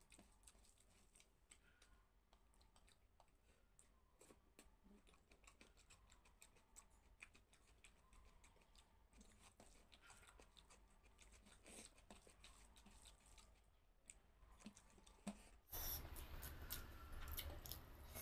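Faint soft squishing and small clicks of fingers mixing cooked rice with curry gravy on a steel plate. About two seconds before the end, a handful is eaten, and louder close-up chewing and wet mouth sounds take over.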